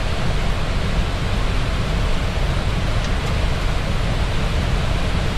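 Steady rushing noise on an Airbus A320 flight deck in flight, the sound of air streaming past the cockpit, even and unbroken.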